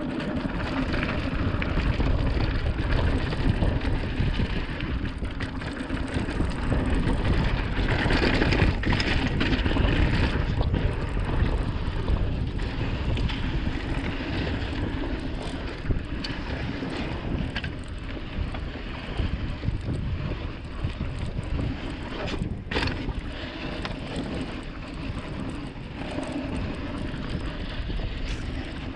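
Mountain bike ridden along a dirt trail: wind rushing over the microphone and tyres rolling over dirt, with one sharp knock about three-quarters of the way through.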